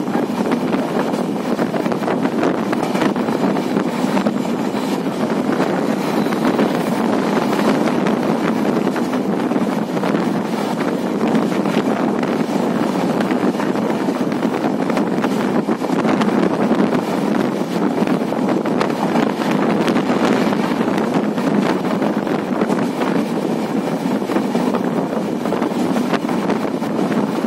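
Train running at speed, heard from beside the coach: a steady rush of wind on the microphone mixed with the rumble of the train.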